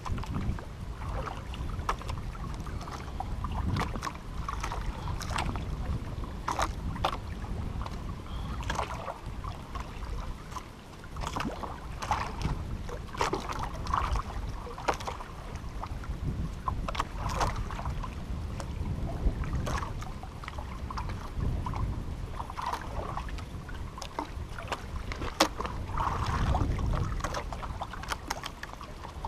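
Water lapping and splashing against the hull of a small wooden outrigger canoe, over a steady low wind rumble on the microphone, with scattered small clicks and knocks throughout.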